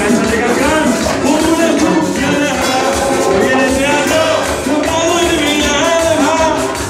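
A live Latin dance band playing, with a man singing into a microphone over hand drums and shaken percussion.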